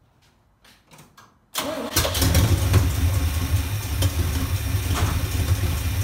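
Small-block Chevy 350 V8 cranking briefly on the starter about a second and a half in, catching almost at once and then running steadily. It starts and runs on its newly replaced HEI distributor, so the no-spark, no-start fault is cured.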